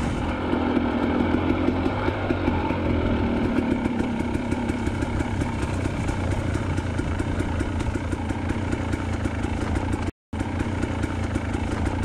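KTM 300 TPI two-stroke single-cylinder dirt bike engine running steadily as the bike is ridden along a single-track trail. The sound drops out completely for a moment about ten seconds in.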